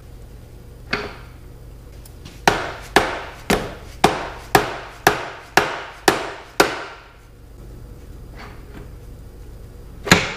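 A mallet striking the spindle end of an old milling machine during reassembly: one blow, then a run of about nine firm blows at roughly two a second, and one louder blow near the end, each dying away quickly.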